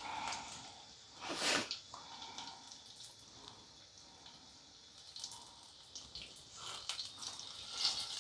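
Besan-battered cauliflower pakoras deep-frying in mustard oil in a kadai: a faint steady sizzle with scattered crackles and pops, and a louder burst of crackling about a second and a half in.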